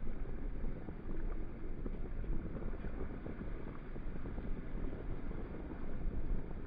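Wind buffeting the microphone over water rushing along a sailboat's hull under way: a steady, rumbling noise with no engine tone.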